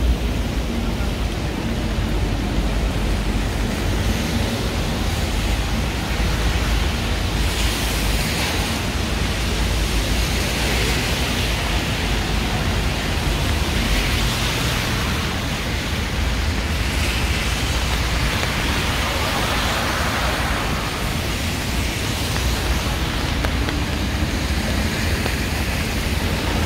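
Heavy rain falling steadily in a city street, a continuous hiss, with several swells of rushing noise in the middle stretch.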